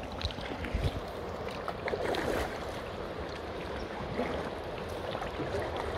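Paddles dipping and splashing in calm river water, with water lapping against an inflatable kayak, and a louder paddle splash about two seconds in.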